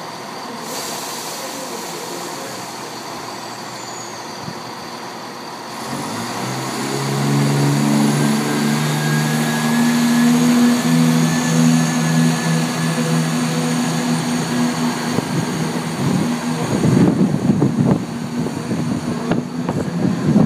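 British Rail Class 170 Turbostar diesel multiple unit pulling away. A steady hum gives way, about six seconds in, to its underfloor diesel engines opening up under power. The engine note grows louder and holds steady as the train accelerates, with a faint whine above it. Near the end the sound turns to an uneven rumble.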